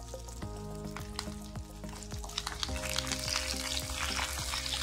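Shallots, garlic and curry leaves sizzling and crackling in hot oil in an aluminium kadai as they are stirred and left to brown. The sizzle grows louder a little past halfway. Soft background music with held chords plays underneath.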